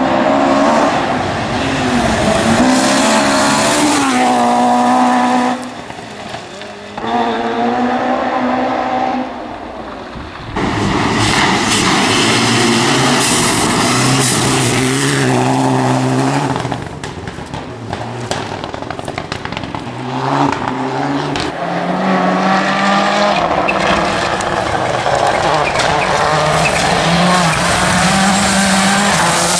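Rally cars driven flat out, engines revving high and dropping back at each gear change, several cars one after another.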